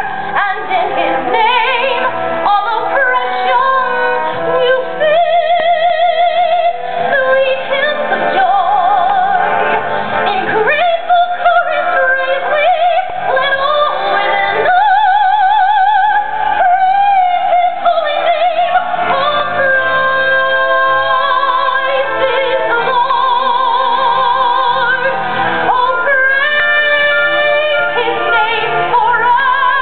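A woman singing live in a classical style, with long held notes that carry a wide vibrato, over an instrumental accompaniment.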